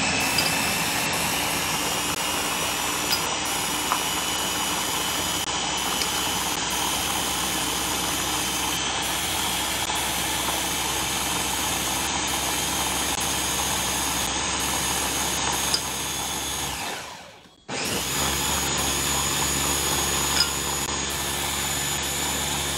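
Countertop blender with a press-down motor head running steadily as it blends yogurt, mango and water into a lassi. It stops for about a second near two-thirds through, then starts again.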